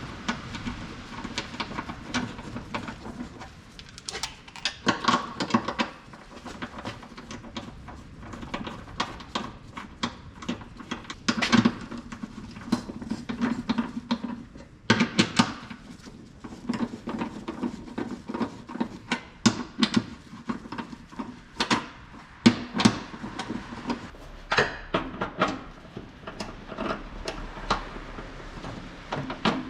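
Irregular clinks, clacks and knocks of hand tools and metal parts being handled and set down during car suspension work.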